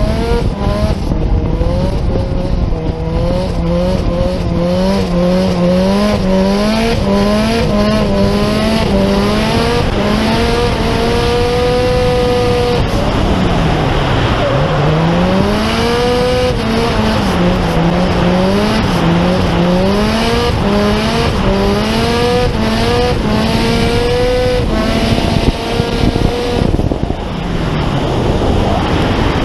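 Drift car's engine revving hard, held high with a wavering pitch. About thirteen seconds in the pitch sweeps down and climbs back, and it does so again a few seconds later, with a rush of noise during the first dip.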